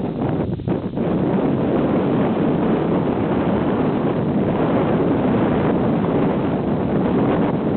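Strong wind buffeting the microphone, a loud, steady rush with a brief lull about half a second in.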